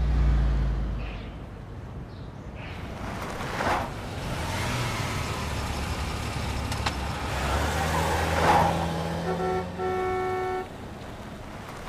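A car engine and road noise, with a low rumble swelling about a second in. Near the end a car horn sounds, a short toot then a longer blast lasting about a second.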